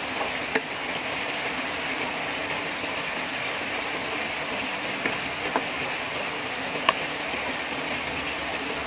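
Steady hiss of heavy rain, with a few sharp clicks of a wooden spatula against the pan as cubed pork, carrots and potatoes are stirred.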